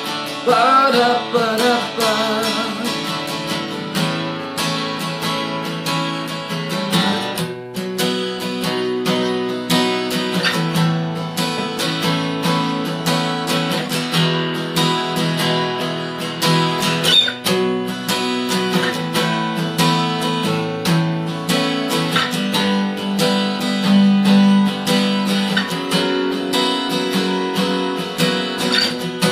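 Acoustic guitar strummed in a steady rhythm as an instrumental stretch of a song. A held, wavering sung note trails off in the first couple of seconds.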